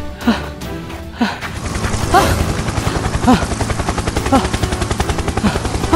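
Rapid, continuous automatic gunfire starting about a second and a half in, over a low rumble. A swooping tone rises and falls about once a second throughout.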